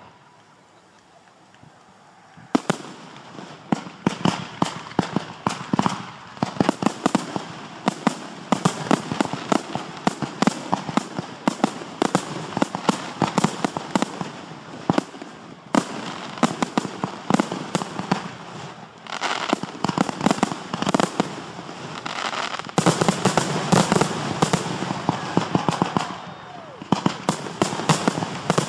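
Display fireworks, cakes and aerial shells, firing in rapid succession. After a brief lull, a dense string of sharp pops and booms starts about two and a half seconds in and keeps going, growing heavier and louder in the last few seconds.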